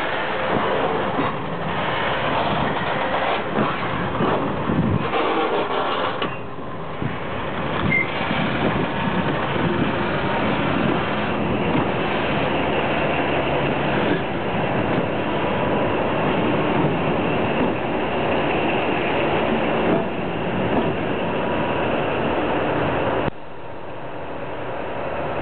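Freight train of open wagons rolling past, with wheels clattering and knocking over the rail joints, together with the running diesel engines of its two class 753.7 locomotives as they come by. The level drops suddenly near the end.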